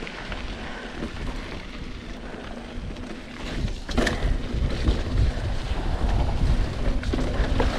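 Wind rushing over a mountain biker's action-camera microphone while riding a dirt trail, with tyre rumble and light rattles from the bike. A sharp knock comes about four seconds in, and the low rumble grows louder after it.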